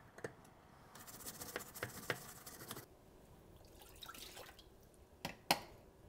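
Faint scrubbing and handling on the plastic detergent dispenser of a dishwasher door, with small wet ticks. Two sharp clicks come close together about a second before the end.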